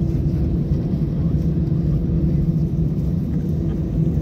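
Airbus A320's jet engines at taxi idle, heard inside the cabin as a steady low drone with a constant hum.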